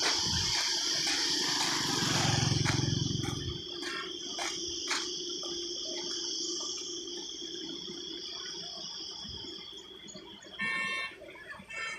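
Insects, crickets by their sound, chirping in a steady high chorus that fades out near the end, with a brief low hum early on and two short pitched calls just before the end.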